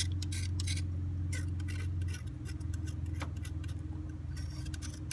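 Short, irregular scrapes of a hand tool cleaning gunk off the thermostat housing mounting surface on a 2006 Ford Mustang's V6 engine. Under them is a steady low hum that dips slightly about two seconds in.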